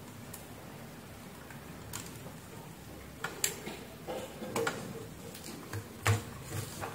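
Irregular small clicks and taps of a blender's circuit board and wiring being handled on a workbench, sparse at first, then more frequent and louder in the second half, the loudest about six seconds in.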